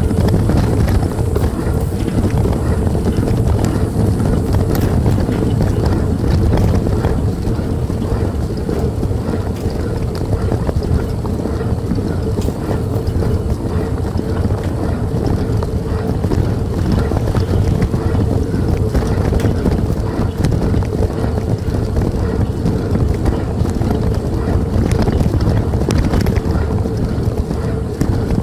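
Bionic Runner running bike being ridden, with heavy wind noise on the microphone over a steady hum and scattered sharp clicks from the machine.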